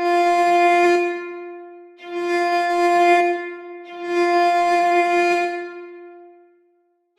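Slow background music: a bowed string instrument holds one long note three times in long swells, then fades away near the end.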